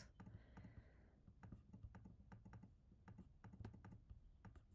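Faint, irregular clicking from a computer keyboard and mouse, about three or four clicks a second, over a low steady hum.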